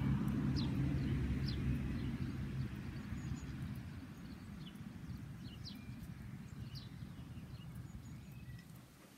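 Outdoor ambience of small birds giving scattered short, high chirps over a low steady rumble, fading out gradually toward the end.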